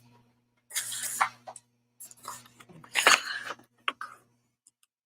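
Paper and packaging rustling in several short bursts as the album's printed contents are handled, over a faint steady electrical hum.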